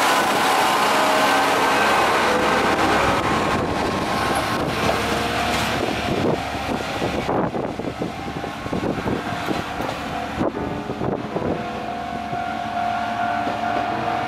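Kanto Railway KiHa 2400-series diesel railcar pulling away, its diesel engine running under power. From about six seconds in, a quick run of clicks from the wheels over the rail joints joins it, and the sound grows a little fainter as the railcar draws away.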